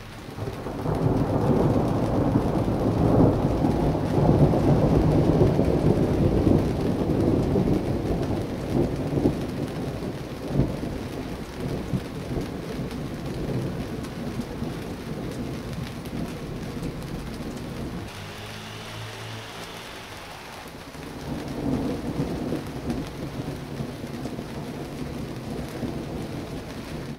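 Distant thunder rolling: a deep rumble swells about a second in and dies away slowly over the next fifteen seconds or so, and a second, weaker roll comes near the end. Rain falls steadily underneath.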